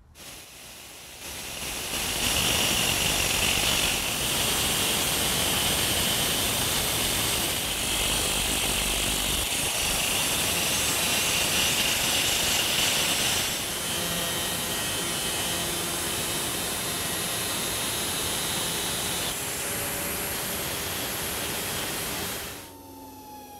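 Angle grinder with a 4-inch cutoff wheel cutting through an electric motor's steel shaft while the shaft is spun, a loud steady grinding that changes tone about halfway through. Near the end the grinding stops and a falling whine follows as it spins down.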